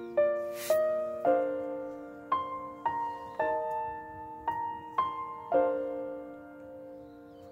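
Background music: a gentle solo piano melody over chords, each note struck and fading away, with a short burst of noise about half a second in.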